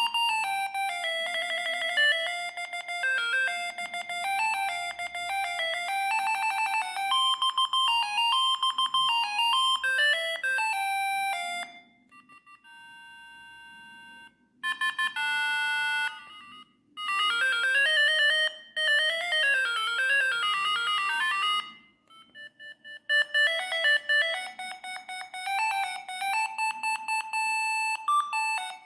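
Siemens S45i mobile phone playing its ringtones one after another: a series of beeping electronic melodies, with short breaks between tunes about twelve and twenty-two seconds in.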